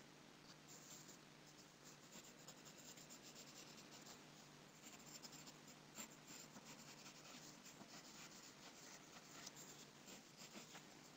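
Near silence: faint room hum with soft, irregular scratching and clicking close to the microphone.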